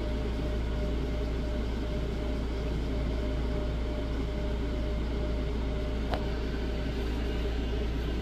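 Steady mechanical room noise, a low hum with an even fan-like whir, with one small click about six seconds in.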